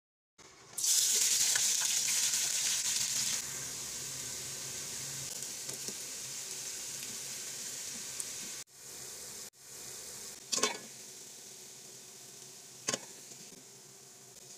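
Sliced onions frying in hot fat in an aluminium pot: a loud sizzle as they hit the oil, settling into a steadier, quieter sizzle that fades toward the end. Twice in the second half, a sharp knock of the metal spatula against the pot.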